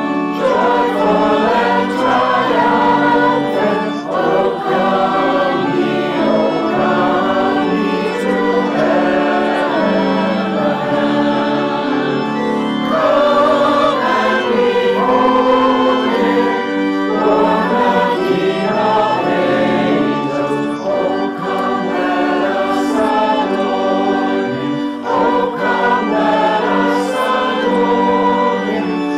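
Virtual choir of mixed men's and women's voices singing a hymn together in sustained, held phrases, with the separate home recordings blended into one choral sound.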